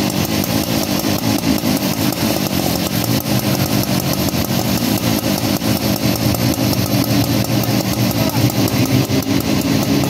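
A fire engine's engine running steadily to drive its pump, with a hose spraying water onto a burning car.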